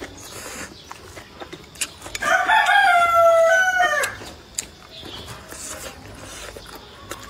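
A rooster crows once, a single call of about two seconds in the middle, slightly falling in pitch at the end. Small clicks of eating with chopsticks come before and after it.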